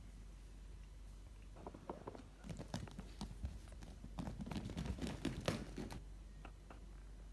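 A kitten's claws scratching and scrabbling on a quilted fabric mattress as it climbs up it: a run of quick, scratchy rustles and clicks starting about a second and a half in and stopping about six seconds in.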